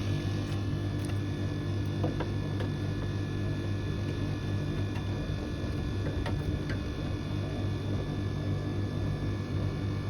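Temperzone air conditioner outdoor unit running steadily, its compressor giving a low, even hum with a few faint ticks. The unit is working and cooling normally.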